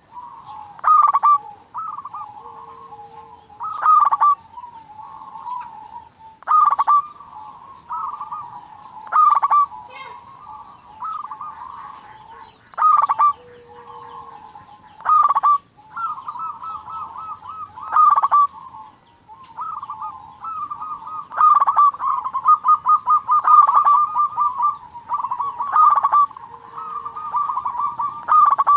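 Zebra doves (perkutut) cooing: loud calls of about a second each, repeated every couple of seconds, with quick rattling runs of notes between them that get denser in the second half.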